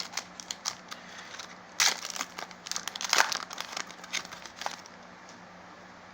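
Foil wrapper of a Pokémon trading card booster pack crinkling and crackling as it is torn open, with the sharpest crackles about two and three seconds in, dying away near the end.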